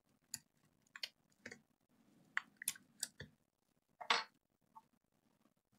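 Faint, scattered small clicks and taps of hands working inside an opened laptop: the battery cable's connector being pressed onto the motherboard and a USB-C charger plug with an inline meter being handled. A slightly longer, louder one comes about four seconds in.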